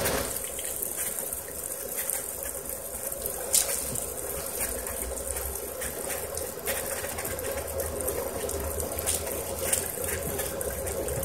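Pool water splashing as a dog snaps and bites at the surface, many short sharp splashes over a steady hiss of running, aerated water.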